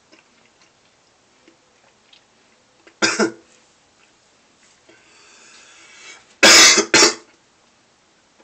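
A man coughing while eating Skoal peach dipping tobacco: one cough about three seconds in, a rasping breath, then two harder coughs close together near the end.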